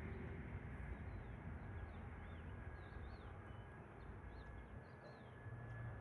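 Small birds chirping in short rising-and-falling calls, several times, over a faint, steady low background rumble.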